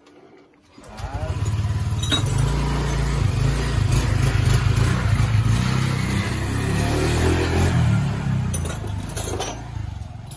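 Motorcycle engine coming in about a second in and running steadily, growing quieter near the end.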